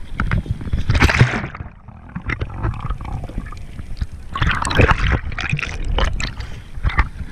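Water splashing and gurgling right at an action camera's microphone as it is dipped in and out of the sea, going dull and muffled for a couple of seconds while under the surface, with a second burst of splashing about halfway through.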